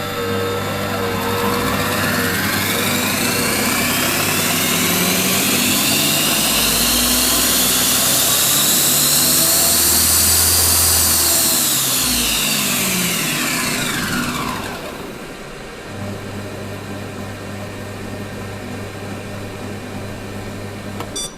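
Monsieur Cuisine Plus kitchen robot's motor running with a whine that climbs steadily in pitch for about ten seconds, then falls back and settles to a quieter steady hum. This is the abnormal noise it makes when started, which the owner says gets no better when the speed is changed and stops by itself after a while.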